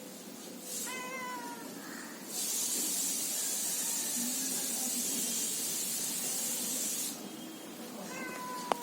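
Domestic cat meowing once, then hissing steadily for about five seconds, then starting to meow again near the end, with a sharp click.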